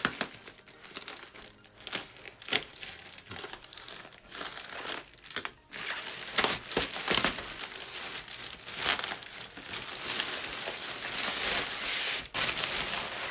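Parcel packaging crinkling and tearing as it is opened by hand: irregular rustling and crackling, busier in the second half.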